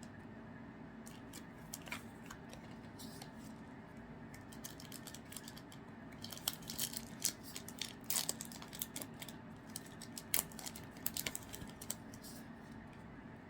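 Trading cards and their packaging being handled: a run of light clicks, snaps and crinkles, sparse at first and busiest in the second half.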